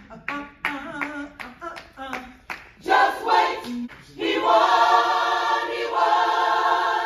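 Choir rehearsing a cappella: short sung phrases over hand claps, then the voices swell into one long held note about four seconds in.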